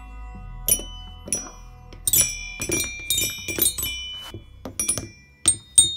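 Toy xylophone's rainbow-coloured keys tapped with a wooden mallet in an irregular run of single notes, each tap ringing briefly at its own pitch, with a quick flurry of notes about two seconds in.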